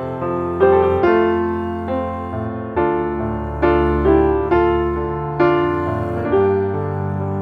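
Slow, gentle piano music: single notes and chords struck about once a second, each ringing and fading before the next.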